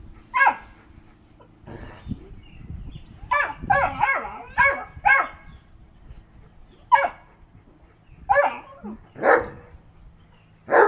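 Dogs barking in play, a Vizsla puppy and a Briard: a quick run of about four short barks, then single barks spaced a second or two apart.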